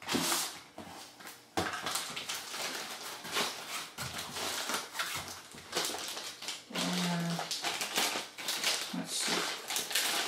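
Packaging being handled and cleared away: continuous rustling and crinkling with small knocks and clicks. A short low tone sounds about seven seconds in.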